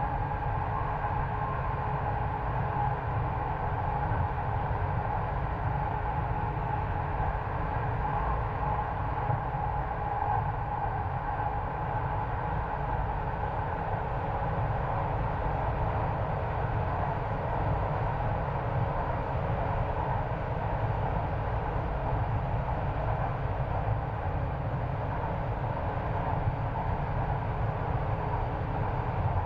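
Passenger train running, heard from inside the carriage: a steady rumble with a faint, even whine over it.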